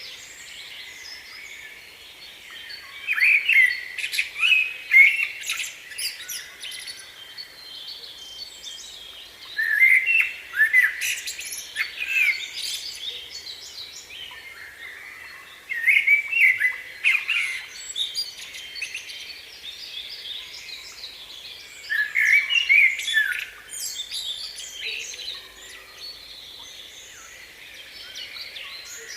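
Small birds chirping and singing: a louder burst of chirps comes back about every six seconds, with softer chirping in between.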